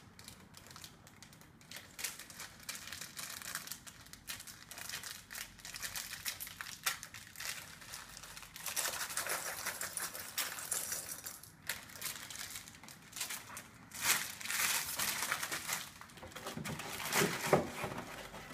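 Clear plastic LEGO parts bags crinkling as they are handled and shaken out, with small plastic bricks clicking and clattering into a tray. A louder knock near the end.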